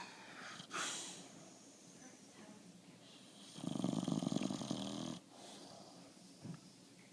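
Bulldog snoring: a short breath sound about a second in, then one loud, fluttering snore about halfway through that lasts roughly a second and a half.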